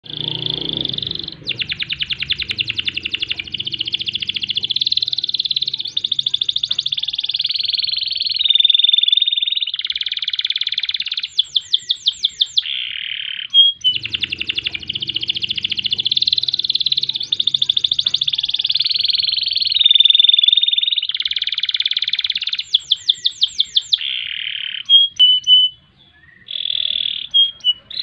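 Canary singing a long, nearly unbroken song of fast rolling trills and rapid high notes. Twice it breaks into a quick run of rising sweeps. The same song sequence repeats about halfway through.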